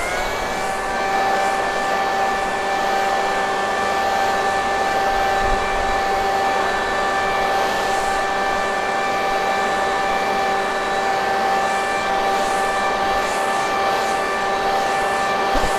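Electric blower motor switching on, its pitch rising quickly to a steady high whine, then running at constant speed with a rushing of air.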